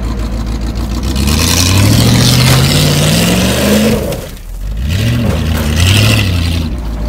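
Demolition derby car's engine idling, then revved with a rising pitch for about three seconds, cut back sharply, and revved once more briefly before settling back to idle.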